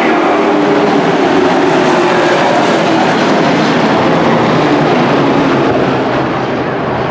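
Several dirt-track race trucks' engines running together as a pack: a loud, steady drone of overlapping engine notes that shift in pitch.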